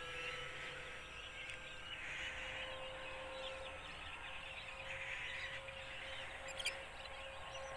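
Birds chirping and chattering in patches, over a faint steady whine from the electric motor and propeller of a small remote-control UMX Cessna 182 flying at a distance. A single sharp tick comes near the end.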